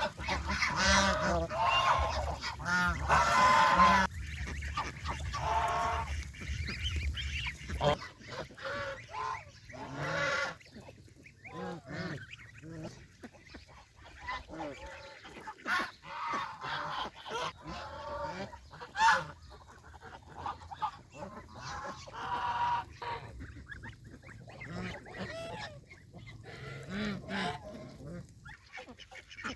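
Domestic geese honking, a dense run of loud calls in the first four seconds, then scattered honks and calls. A low rumble sits under the first eight seconds.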